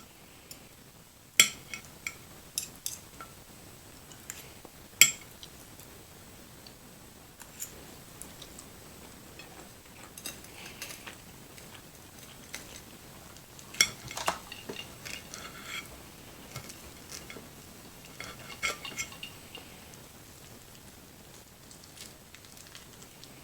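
Metal cutlery clinking against a plate, in scattered sharp clinks with softer clicks between; the loudest come about one and a half, five and fourteen seconds in.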